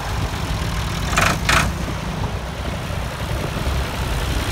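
Vintage tractor engines running steadily at low revs as a Ford 4000 and then a Fiat 540 drive slowly past close by. There are two short, sharp noise bursts about a second in.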